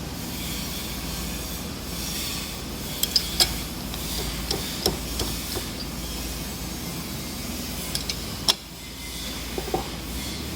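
Sharp metallic taps and clicks, three in quick succession about three seconds in and a few more scattered later, over a steady workshop machine hum. This is typical of truing a workpiece in a lathe chuck: tapping the part and working the chuck while reading a dial indicator.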